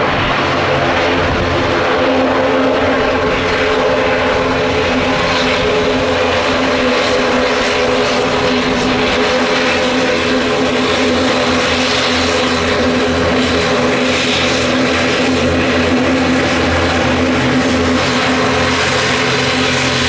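ATR 72-600 turboprop airliner's engines and propellers running steadily: a continuous drone with several held tones over a rushing noise.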